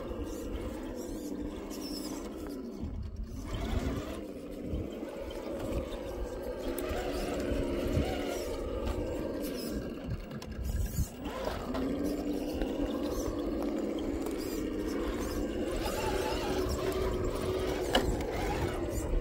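An RC scale crawler's electric motor and gearbox whining as it crawls over rocks, the pitch rising and falling with the throttle and dropping away briefly twice. A sharp tick near the end.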